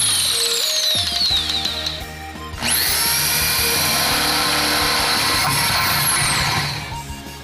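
Hitachi electric drill driving a self-drilling rivet through steel sheet. Its high whine falls away over the first two seconds. After a short lull it spins up sharply at about two and a half seconds, runs steadily as the rivet's drill point bores through, and winds down near the end. Background music plays throughout.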